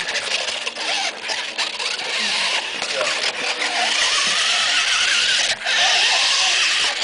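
Small electric motor of a remote-control toy car whirring as it drives, louder over the second half, with a brief drop about five and a half seconds in.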